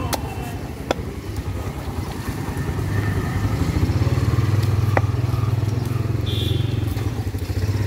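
A motor vehicle engine running steadily, growing louder about three seconds in. Three sharp knocks of a blade cutting fish on a wooden chopping block.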